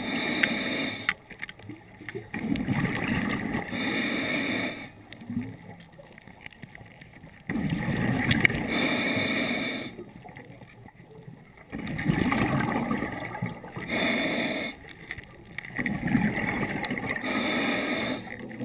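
Scuba diver breathing through a regulator underwater: rumbling bursts of exhaled bubbles alternating with the brighter hiss of inhaling, several breath cycles with quiet pauses between.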